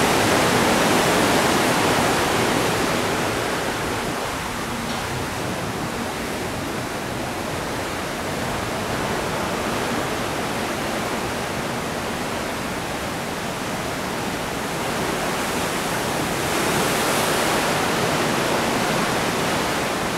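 Steady rushing of wind along the open deck of a ship at sea, a loud even hiss that eases slightly in the middle and swells again near the end.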